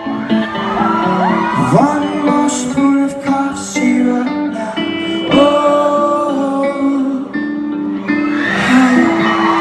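Rock band playing live: held guitar chords under a singer's gliding, drawn-out vocal lines. Crowd whoops and cheering start to rise near the end.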